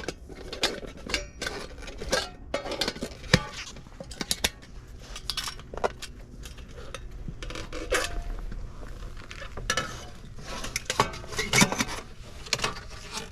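Irregular metal clinks and clanks as the cooker compartments of a snowmobile exhaust silencer (a Sled Shed Cooker Thing) are opened and handled.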